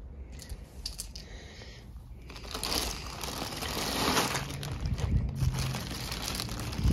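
Thin black plastic garbage bag crinkling and rustling as it is handled and pulled open by hand. The crinkling is soft at first and gets much louder from about two and a half seconds in.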